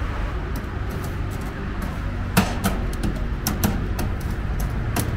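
Flat metal kebab skewers clinking against the steel charcoal grill as they are handled and turned: a few sharp metallic clicks from about two and a half seconds in and once more near the end, over a steady low rumble.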